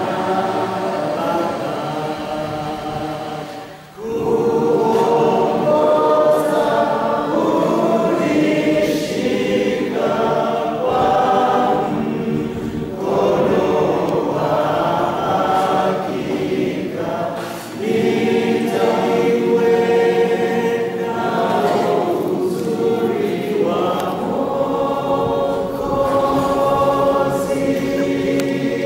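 A group of voices singing a slow hymn together in Swahili, holding long notes, with brief breaks between phrases about four seconds in and again near eighteen seconds.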